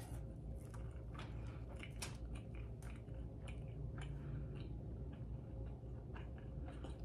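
A person chewing a mouthful of soft pancake, with scattered small mouth clicks and smacks.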